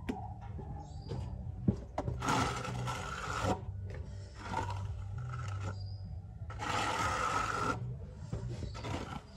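Steel trowel scraping wet cement render, in repeated strokes of about a second each, three of them strong, with a sharp click near the start.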